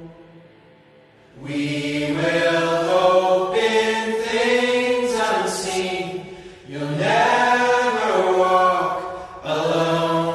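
Music: a voice holding long wordless sung notes in three drawn-out phrases, the closing vocal of the song.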